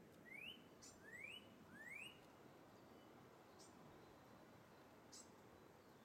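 Northern cardinal singing faintly: three rising whistled notes in quick succession in the first two seconds, then no more song.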